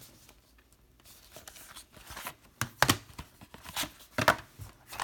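Plastic DVD cases and their cardboard packaging being handled and set down on a wooden table: rustling with several sharp clicks and knocks, starting about a second in.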